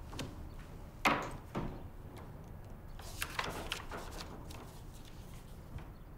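Small knocks and clicks of objects handled on a wooden table: a sharp knock about a second in, a lighter one just after, then a cluster of light clicks and taps a couple of seconds later, over quiet room tone.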